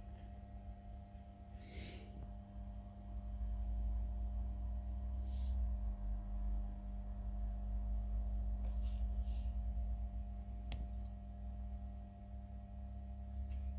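Steady low electrical hum with a few faint steady tones above it, broken by a few brief small clicks and scrapes.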